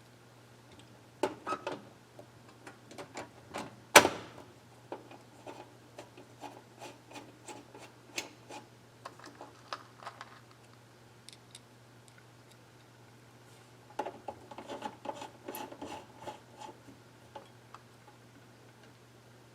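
Small parts and tools being handled on a workbench: scattered clicks and rubbing, with one sharp knock about four seconds in, over a steady low hum.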